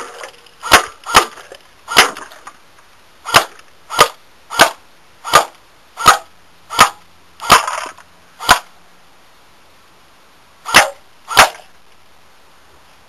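AK-47 style BB gun firing 6mm plastic pellets at beer cans on semi-automatic, one sharp shot at a time, about fourteen shots at an uneven pace with a pause of about two seconds before the last two.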